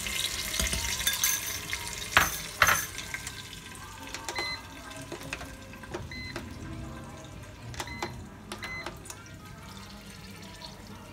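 A metal spoon scraping thick chilli paste out of a china bowl into a pressure cooker's inner pot, with two sharp knocks of the spoon about two seconds in. Then the electric pressure cooker's keypad gives about four short electronic beeps as its buttons are pressed to switch on the heat.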